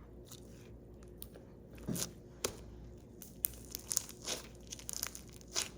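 Slime being squeezed and pressed by hand, giving irregular small crackles and pops that come more often in the second half.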